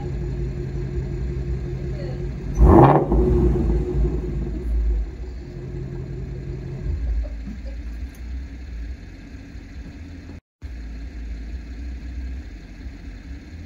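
Shelby Mustang GT350's 5.2-litre flat-plane-crank V8 at idle through its exhaust, rumbling. About two and a half seconds in it revs up sharply, the loudest moment, then falls back over a few seconds to a quieter, steady idle.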